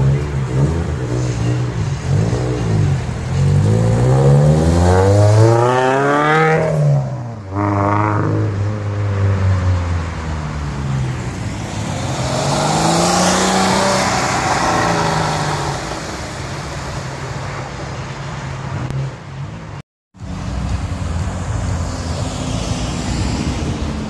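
Cars driving off one after another: a tuned Scion FR-S's flat-four revs hard and accelerates away, its pitch climbing steeply several times, then a Porsche 911's engine rises and falls as it passes. After a brief cut, an engine runs steadily at low revs.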